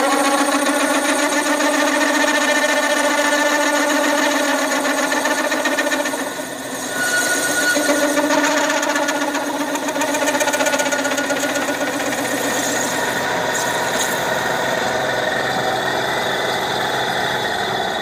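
Milling machine running with its end mill cutting a round hole through a metal boiler flange, for a new heater element: a steady machine whine with a metallic cutting chatter. The level dips briefly about six seconds in.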